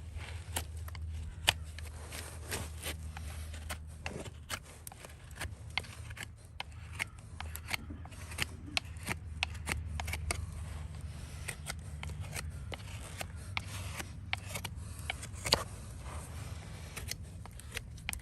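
Hoof being trimmed with farrier's hand tools: irregular sharp clicks and short cutting and scraping strokes, over a steady low hum.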